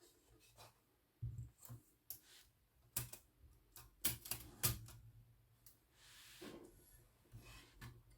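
Irregular metal clicks and knocks from an Olivetti Lettera 22 portable typewriter's mechanism being handled, with a few sharper clacks near the middle and a brief rub near the end.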